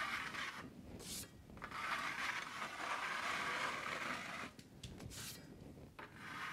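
Steel drywall taping knife scraping the ridges off set but not yet hard hot mud (setting-type joint compound) along a taped ceiling seam. Three scraping strokes, the middle one long, with short pauses between them.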